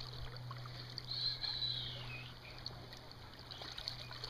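River water flowing and trickling around a wading angler's legs, with a few faint ticks. A high whistle-like sound falls in pitch about a second in.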